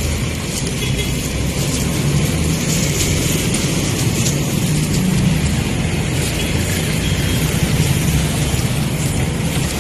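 Motorcycle engine running steadily with road noise, a constant low hum.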